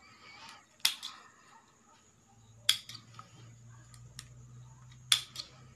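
Scissors snipping through the ties that bind a coil of plastic weaving wire: a few sharp snips spaced a second or more apart, with light rustling of the wire between them.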